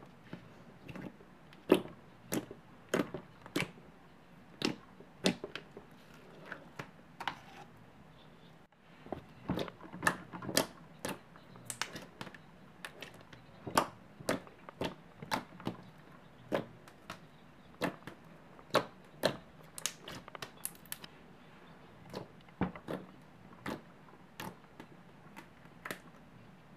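Thick clear slime pressed and poked with fingers, giving a run of sharp clicks and pops about one or two a second.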